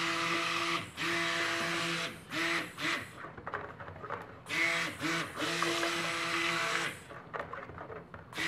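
A Cuisinart stick blender's motor whirring as it blends cold-process soap batter of oils and lye in a plastic bucket. It is run in short bursts, switched on and off repeatedly, with longer pauses about three seconds in and near the end.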